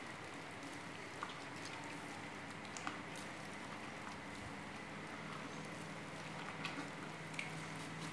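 Grapes being squeezed and crushed by a gloved hand inside a glass jar: faint wet squishing with a few scattered small clicks, over a steady low hum and hiss.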